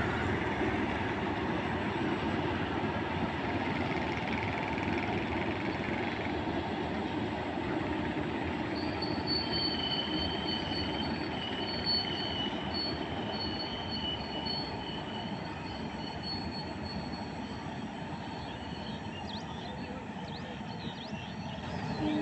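Goods train rolling along the track, a steady rumble of wheels on rails that slowly fades. A high wheel squeal comes in for several seconds in the middle.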